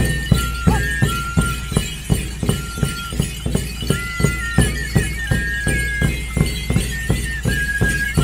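Traditional Andean dance music: a steady drum beat of about three strokes a second under a high flute melody of held notes stepping up and down.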